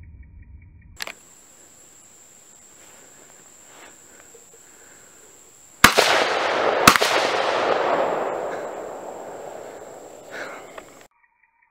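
Two sharp rifle shots about a second apart from an AR-15 in .223/5.56, followed by a long rolling echo that fades over about three seconds.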